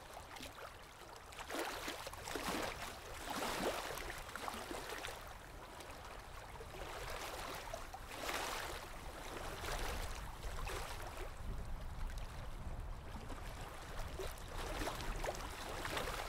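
Open-air wind and water ambience: a rushing noise that swells and eases every second or two over a steady low rumble, with no speech or music.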